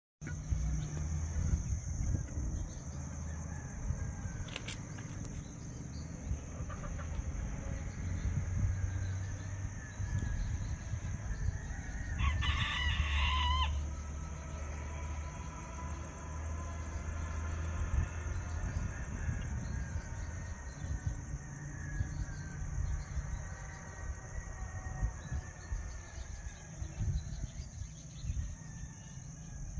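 Roosters crowing: one loud, wavering crow about twelve seconds in, lasting over a second, with fainter crows further off later on. Underneath there is a steady high-pitched hiss and a low rumble.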